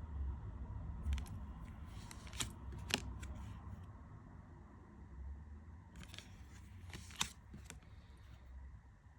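Glossy cardstock tarot cards being handled and flipped through one by one: a few crisp clicks and light slides of card against card, over a low steady hum.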